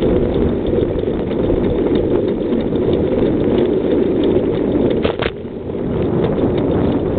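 Steady rumble of wind buffeting the camera microphone while riding a bicycle along a street, with one brief sharp noise and a short drop in the rumble about five seconds in.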